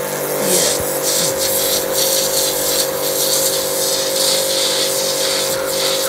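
JPT 2400-watt electric pressure washer running steadily under load, its motor and pump giving a constant hum under the loud hiss and spatter of the high-pressure water jet blasting into a fired red brick. The jet is eroding a cut through the brick.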